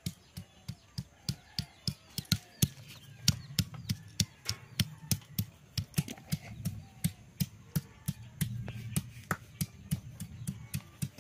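Garlic cloves being crushed with a stone roller on a flat grinding stone (shil-nora): a steady run of sharp stone-on-stone knocks, about three a second.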